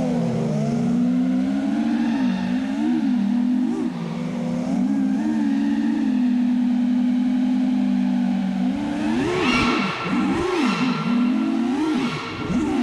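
6S FPV freestyle quadcopter's brushless motors and propellers whining, the pitch holding steady, then dipping and surging as the throttle changes, with several quick sharp rises and falls in the last few seconds.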